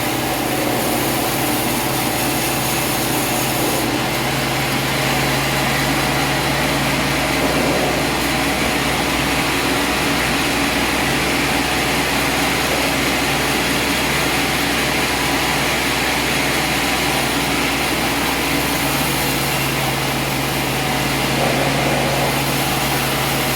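Sawmill engine running steadily. Its low hum fades for a stretch in the middle and comes back near the end.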